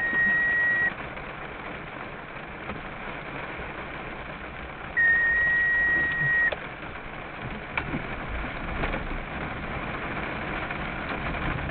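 Two long electronic beeps at one steady high pitch: the first lasts about a second, and the second, about five seconds in, lasts about a second and a half. Under them runs a steady hiss of rain on the car.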